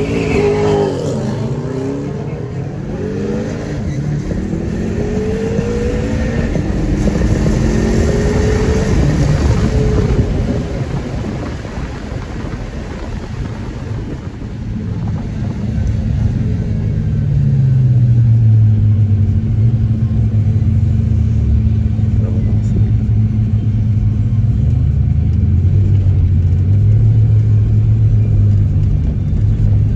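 BMW M5's twin-turbo 4.4 V8 heard from inside the cabin on a drag-strip launch: revs climb and drop back through several upshifts over the first ten seconds or so. The engine then eases off and runs at low revs with a steady drone. The driver thinks traction control on level 1 held the car back at the launch.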